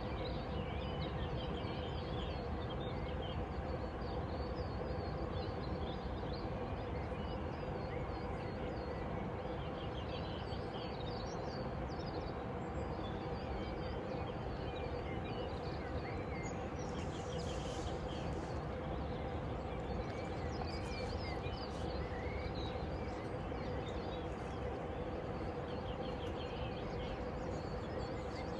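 Small birds chirping and twittering over a steady low background rumble with a faint constant hum.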